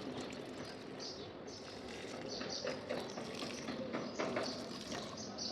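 Water running and splashing, with small irregular clicks and knocks.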